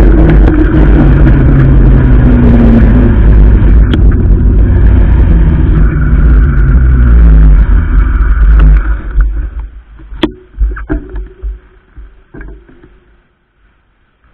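Heavy wind rumble on a bike-mounted camera's microphone, mixed with nearby traffic engine noise, while riding an e-bike through town. The rumble dies away about nine seconds in as the bike comes to a stop, leaving a few short knocks.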